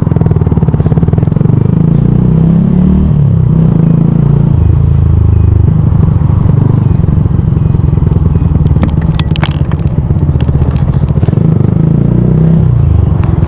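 Yamaha YZF R125's single-cylinder four-stroke engine running while riding, its note rising and falling with the throttle, with wind and road noise.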